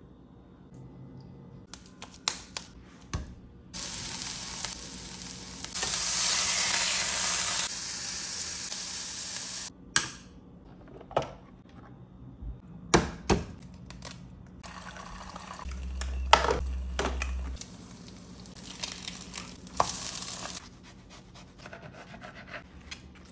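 Kitchen cooking sounds: food sizzling in a hot pan for several seconds, then a run of sharp clicks and knocks from eggs and kitchenware, with a low thud partway through. Softer knife cuts come near the end.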